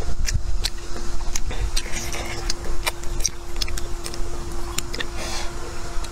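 Wooden chopsticks clicking against a glass bowl as they scoop shredded potato, with chewing sounds between the clicks. A steady hum and a low rumble run underneath.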